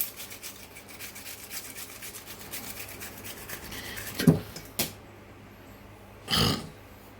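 Onion being grated on a hand grater: quick repeated rasping strokes that stop about four seconds in, followed by a sharp knock and a short click, then a brief noisy burst near the end.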